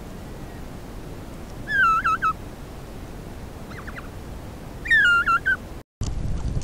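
Himalayan snowcock calling twice, each call a loud whistle that slurs into a quick wavering, stuttering end, with a fainter few short notes between the two calls; these are the young bird's contact calls to the rest of its group. Near the end the sound cuts out for a moment and a steady rushing noise takes over.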